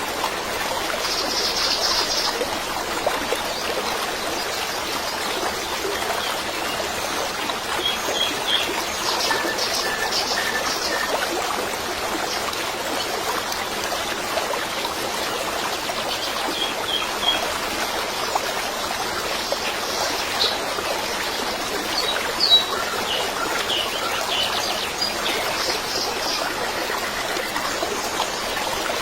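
Steady rushing hiss like running water, with scattered short bird chirps over it.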